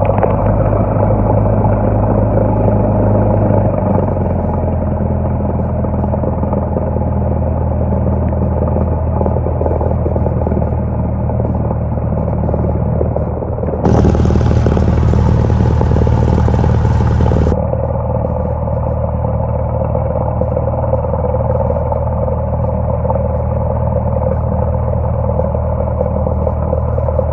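Cessna F152's four-cylinder piston engine and propeller droning steadily, heard inside the small cabin as the plane rolls along the runway. The engine note shifts in pitch about four seconds in, and there is a brighter, slightly louder stretch in the middle.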